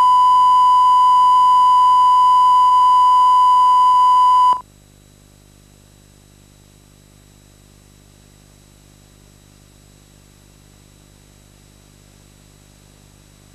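TV test-card line-up tone: one steady, pure beep held for about four and a half seconds, then cut off abruptly. After it, only faint steady hiss and low hum.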